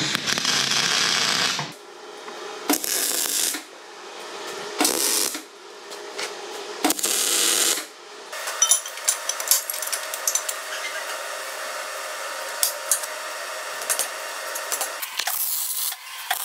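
Power tools working on a steel headstock adapter: four short bursts of about a second each, then a steadier run of several seconds with sharp clicks through it, and another short burst near the end.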